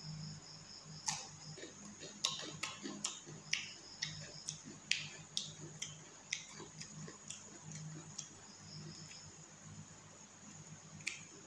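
Irregular light clicks and taps on a ceramic plate as rice is mixed by hand and curry is tipped from a bowl onto it, over a faint steady low hum.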